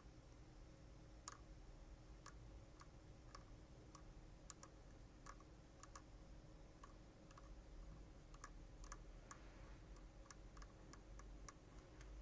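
Faint, sharp clicks at irregular intervals, a few louder ones in the first half, from tool tips tapping against a graphics card's circuit board while traces are checked, over a low steady hum.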